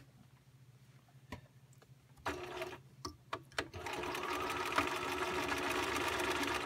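Bernina 1010 home sewing machine (a basic straight-stitch and zigzag model) stitching through fabric: a few clicks and a brief half-second run about two seconds in, then steady sewing at speed for the last three seconds, stopping at the end.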